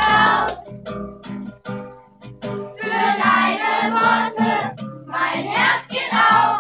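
A group of children and a woman singing a song together, accompanied by a strummed acoustic guitar. The voices come in phrases, and the guitar strums on alone in the short gaps between them.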